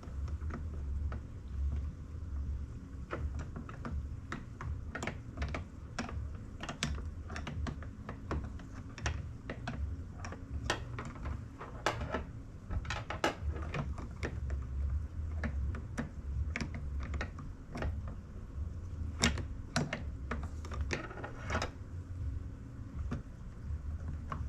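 Irregular small metallic clicks, taps and rattles of a hand tool prying and poking at the door-handle latch linkage inside a pickup truck door.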